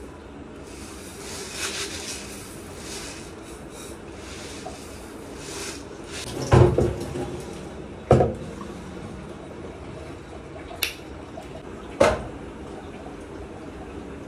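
Red lentils poured from a plastic jar into an aluminium pressure cooker, a rushing pour in the first few seconds. Then three loud metal clanks, about six and a half, eight and twelve seconds in, as the cooker and its lid are handled and set on the gas stove.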